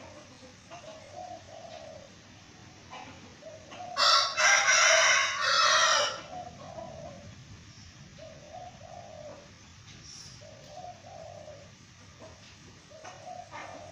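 A rooster crows once, a loud call of about two seconds starting about four seconds in. Low, short bird calls repeat in groups throughout.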